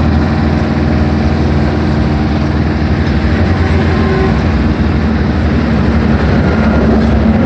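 Iseki Frontier mini combine harvester's engine running steadily, a constant low hum with no change in speed.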